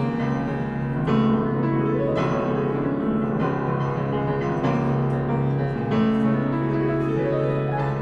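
Solo piano playing the introduction to a musical-theatre song, with a new chord struck about once a second and left to ring.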